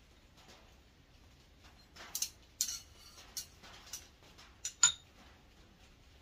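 A center punch marking a rivet for cutting: a run of sharp, irregular metallic taps and clinks, the loudest a ringing strike about five seconds in.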